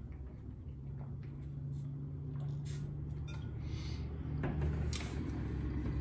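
A man drinking from a stainless-steel insulated water bottle, swallowing, with small clicks from the bottle's cap, then the bottle set down on the table with a light knock.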